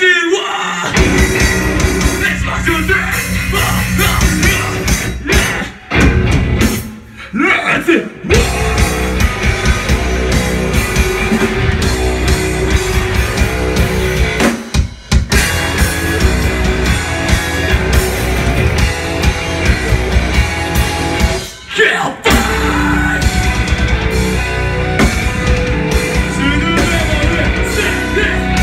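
A live metalcore band playing: distorted electric guitars, bass and a drum kit at full volume, stopping dead for a moment several times before crashing back in.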